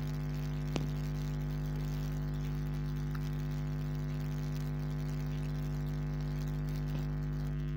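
Steady electrical mains hum with a buzzy stack of overtones, unchanging throughout, and one faint click about a second in.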